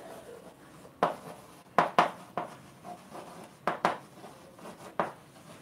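Chalk writing on a blackboard: a series of short, sharp taps and scrapes as letters are written, about seven strokes spread unevenly.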